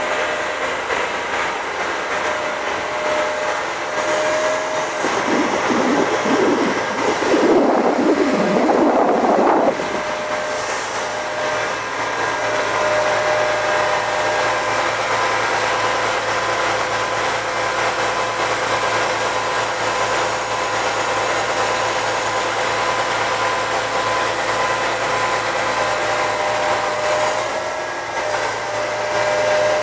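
Truck-mounted CIFA concrete pump on a MAN TGA running: a steady mechanical drone with several held tones, louder and rougher for about five seconds starting around five seconds in.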